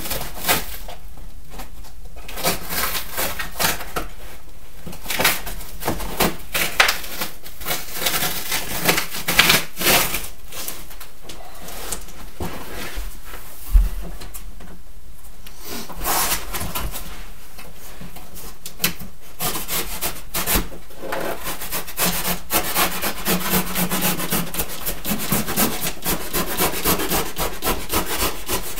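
Scraper knife scraping and slicing through packing tape and cardboard on a large TV carton, in irregular strokes, with the cardboard being handled. A single dull knock about fourteen seconds in.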